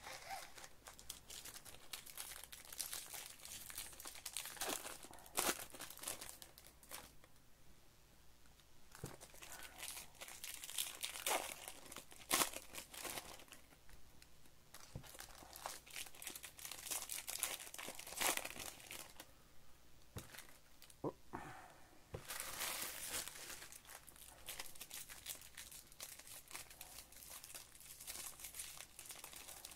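Plastic wrapper of a 2021 Topps Series 2 baseball card pack being torn open and crinkled by hand: irregular crackles and rustles, with louder sharp crinkles every few seconds and a couple of brief lulls.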